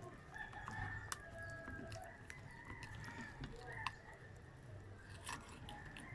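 A rooster crowing in the background, one long drawn-out call over the first half, with a few sharp clicks of a knife cutting fish on a chopping board.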